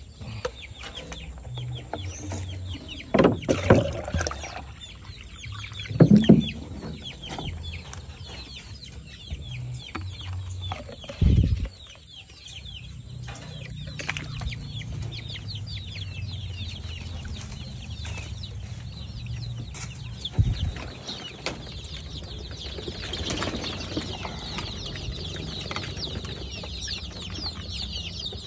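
A brood of young KUB chickens peeping constantly in high, rapid chirps. A few loud thumps and knocks break in about three, six, eleven and twenty seconds in, as the plastic waterer is handled.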